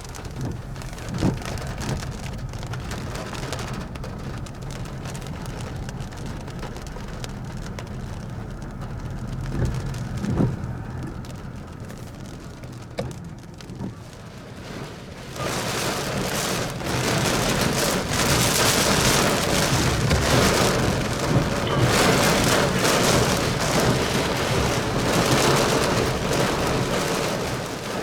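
Thunderstorm rain with rumbles of thunder. About halfway through, the rain suddenly becomes much heavier and louder and stays that way.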